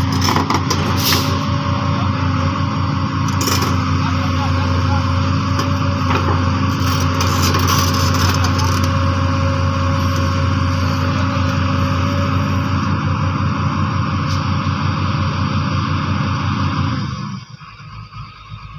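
Excavator diesel engine running steadily, with a few sharp knocks. The engine sound drops away sharply near the end.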